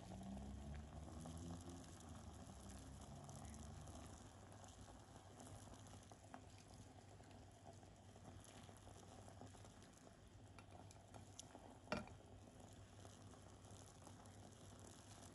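Faint bubbling of hot pot broth simmering in a clay donabe on a portable gas stove, with a few light clicks as ingredients are placed in and one sharp knock about twelve seconds in.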